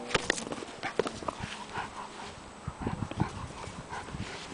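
A dog nosing and pawing a plastic soccer ball across grass: irregular knocks and taps of the ball against its head and paws, a quick cluster near the start and more around three seconds in.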